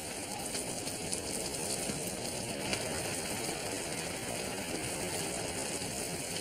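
Steady low rumble of a truck engine idling, heard from inside the cab.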